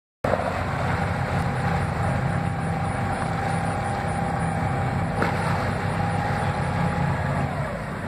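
Trawler's engine rumbling steadily while its thrusters whine, pushing the boat sideways. Near the end the whine falls in pitch and stops, and there is a single knock about five seconds in.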